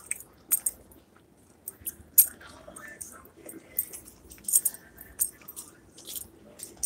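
Scattered light clicks and jingling from a handheld phone and bag being carried, with faint voices in the background.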